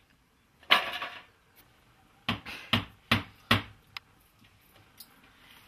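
A clattering knock of sheet metal being handled, then a hammer striking four times in quick, even succession, about 0.4 s apart.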